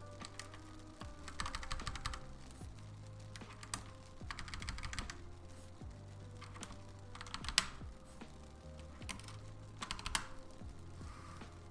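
Typing on a mechanical keyboard in four short bursts of rapid key clicks, over background music.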